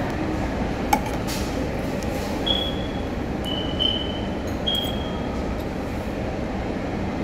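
A spoon clinking against a ceramic soup bowl over steady dining-room noise: a sharp click about a second in, then three short, high ringing clinks between two and five seconds.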